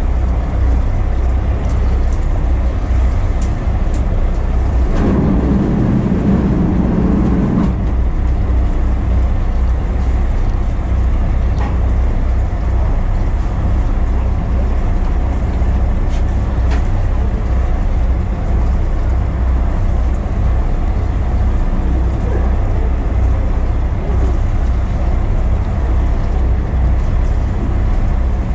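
Boat engine running steadily with a low hum, swelling briefly in a rougher stretch about five seconds in.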